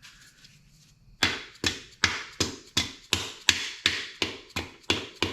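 A dead-blow mallet tapping a main bearing cap down onto an engine block. About a dozen steady, evenly spaced taps start about a second in, roughly three a second, seating the cap before its bolts are torqued.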